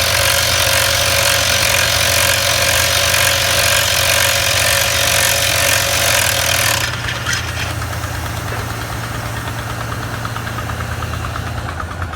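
Rock drill hammering loudly, then stopping about seven seconds in, leaving an engine running steadily.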